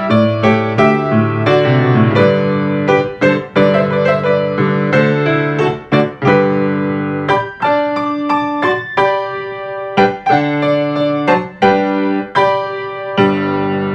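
Solo piano playing closing music after the benediction: a steady run of struck notes and chords. It ends on a chord about thirteen seconds in that is held and rings out.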